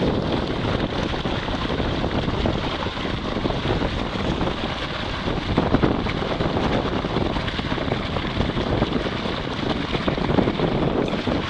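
Water rushing and splashing around a sailboat's rudder blade and hull as she sails at extreme heel, the blade near horizontal, with wind buffeting the microphone.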